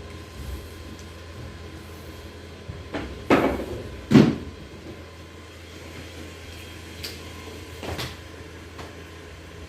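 Thuds and knocks of a chiropractic adjustment on the back: two loud thumps about a second apart a few seconds in, with a few lighter knocks around them.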